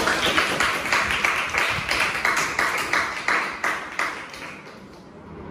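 Audience applauding with many hands clapping at once, dying away about four seconds in.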